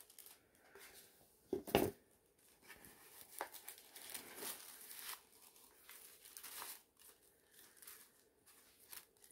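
Tissue paper rustling and crinkling in stops and starts as a small item is unwrapped from its gift box, with one sharper, louder crinkle a little under two seconds in.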